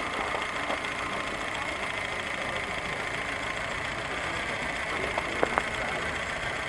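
Small live-steam engine on a 2-inch-scale Shay locomotive running steadily, with a fast, even beat and a steady hiss, as a loaded log car rolls slowly along the track. Two sharp clicks come about five and a half seconds in.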